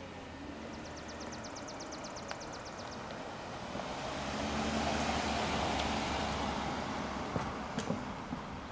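A Volvo car driving past: engine hum and tyre noise that grow louder as it approaches, are loudest about five seconds in, then ease as it pulls away. A rapid high ticking, about ten ticks a second, sounds briefly in the first few seconds.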